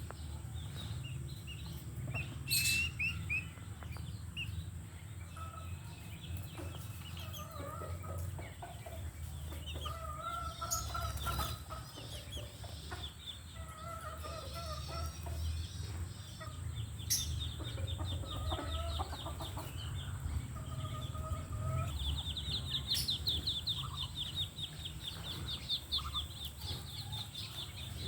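Birds calling: short pitched calls repeating through the middle, then rapid runs of high chirps in the second half, over a low rumble.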